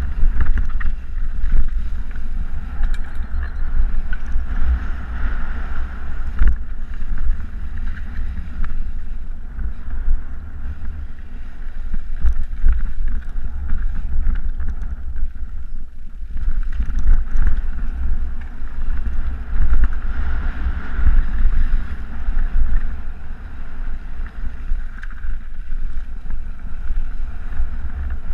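Wind buffeting a bike-mounted camera microphone over the rumble and rattle of a mountain bike descending fast on a rough dirt trail, easing briefly about halfway through.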